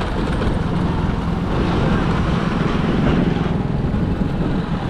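A vehicle driving along a rough road: steady engine hum mixed with road noise.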